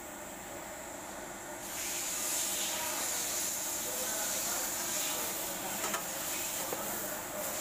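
Radiator coolant gushing out of a Honda Vario 125/150's radiator as the hose is pulled off to drain it: a steady hissing splash that starts suddenly about two seconds in, with a few small clicks later.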